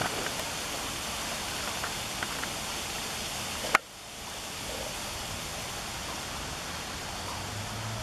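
Steady rushing water noise as a dog paddles across a pond, with a few faint splashy ticks. A single sharp click comes a little under four seconds in, after which the rush dips briefly and returns.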